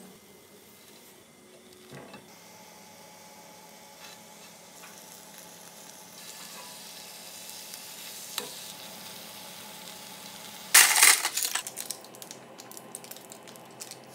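Cylindrical rice cakes on wooden skewers frying lightly in oil in a nonstick pan: a faint, steady sizzle that grows a little louder partway through, with a few light taps. Near the end comes a sudden loud burst of crackle and clatter lasting about a second, then trailing off.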